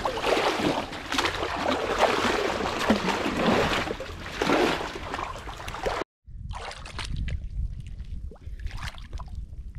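Muddy water splashing and sloshing for about six seconds. It cuts off abruptly, and after that there is a quieter low rumble with a few small clicks.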